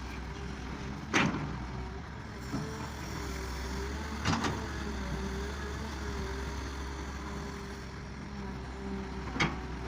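Farm tractor engine running steadily. Three sharp knocks or clanks cut through it, about a second in, at about four seconds, and near the end.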